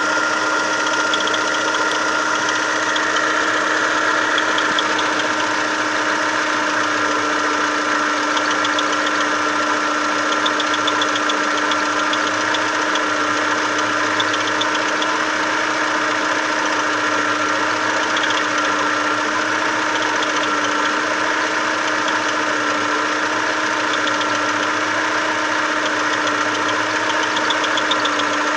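Chevrolet Lacetti engine idling during warm-up, with a steady, unbroken high-pitched whistle over the running; the whistle is put down to the timing belt tensioner pulley.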